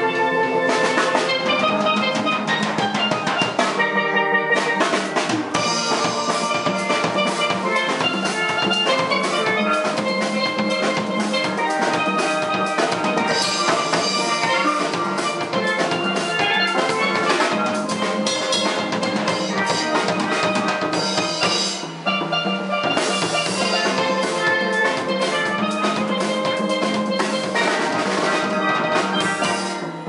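Steel pan band playing a tune, with drums keeping the beat. There is a short break about four seconds in, after which deeper drum beats join.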